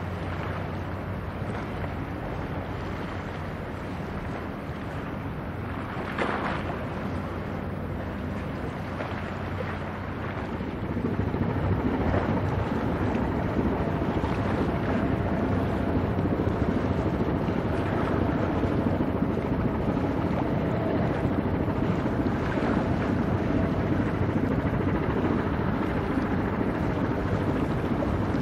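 A cargo ship's engine drones steadily as it passes, under a rushing noise of wind on the microphone and water. The rushing grows louder about ten seconds in.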